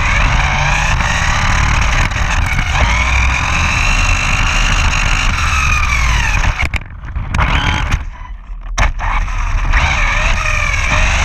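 Brushless electric motor and drivetrain of a 1/8-scale RC buggy whining, the pitch rising and falling with throttle and speed over a low rumble. The whine cuts out twice, briefly, about seven and eight seconds in, as the throttle is released.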